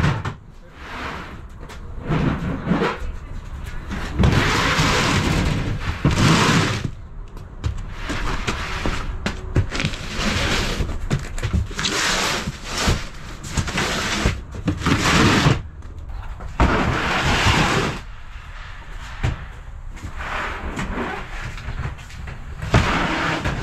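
Plastic tote bins and cardboard boxes being slid across and set down on the floor of a cargo van: a string of scraping noises, each a second or two long, with knocks and thuds as they land.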